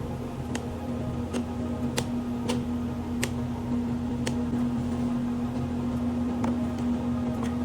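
Electric table fan motor running with a steady hum, with scattered sharp clicks.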